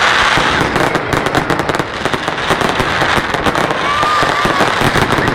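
Fireworks display: dense, rapid crackling and popping as many bursts go off in quick succession without a break.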